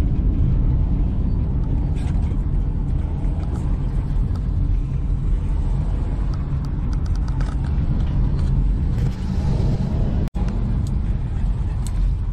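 Steady low rumble of a car's road and engine noise heard from inside the cabin while driving. The sound cuts out for an instant about ten seconds in.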